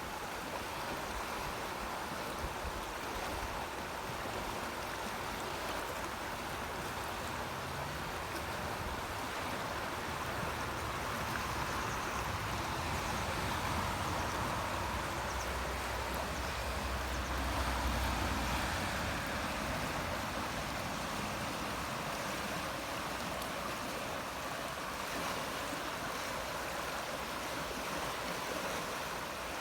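Amblève river water flowing and rushing steadily, with a low rumble swelling for several seconds in the middle.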